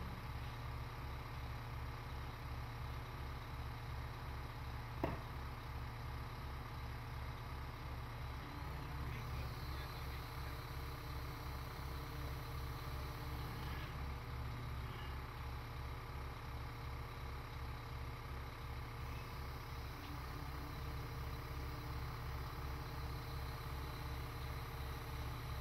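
Liebherr mobile crane's engine running steadily while hoisting a load, with a low even throb pulsing a few times a second. A single sharp click about five seconds in.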